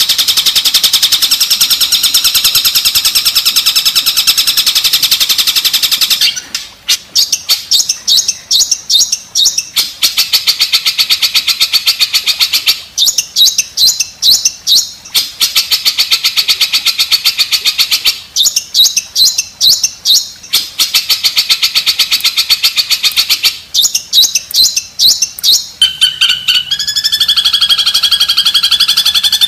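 Recorded songbird song played as masteran, a training song for caged long-tailed shrikes: loud, continuous, high-pitched trilling. After about six seconds it breaks into rapid chattering passages that alternate with dense trills, and it ends in a few sliding whistled notes.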